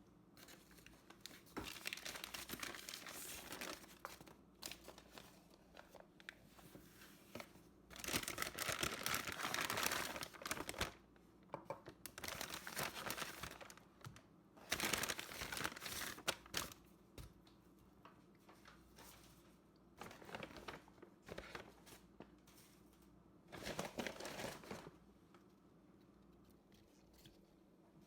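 Irregular bursts of crinkling and rustling, several of them a second or two long, with quieter gaps between.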